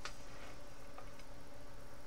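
A sharp click followed by a few faint ticks as a plastic scale model is handled and turned on its stand, over a steady background hum.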